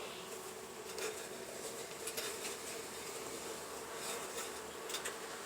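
Honeybees buzzing around an opened hive: a steady, continuous hum, with a few faint clicks.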